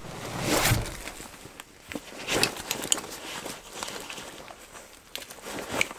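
Rustling and scuffing of a hunter's backpack, chest pack and clothing as the gear is put on and straps are adjusted, with a few sharp clicks like buckles or clips. The loudest rustle comes about half a second in.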